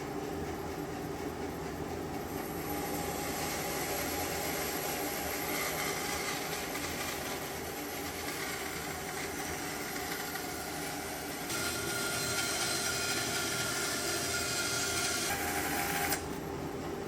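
Felder bandsaw running and resawing a board, the blade cutting along the wood with a steady hiss. The cutting noise grows louder about two-thirds of the way in, then stops suddenly near the end while the machine keeps running.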